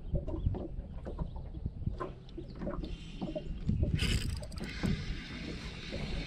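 Wind buffeting the microphone and water lapping against an aluminum boat hull, with small knocks from handling a spinning rod. About four seconds in there is a short burst of hiss, followed by a steady, finer hiss.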